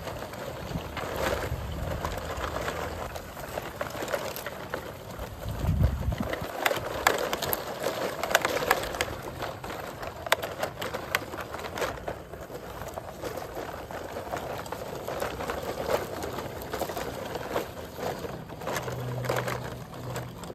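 Plastic toy dump trucks loaded with small toy cars being rolled over dirt and pebbles: a steady gritty crunching of wheels on soil with many small clicks and rattles from the plastic bodies and loose toys in their beds, and a dull thump about six seconds in.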